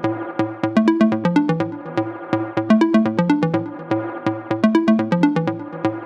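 Background electronic music with a steady beat, short plucked synth notes over a repeating bass line.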